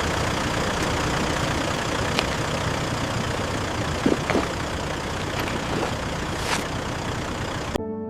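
Vehicle engine idling steadily, with a few faint clicks. It cuts off suddenly near the end as soft music begins.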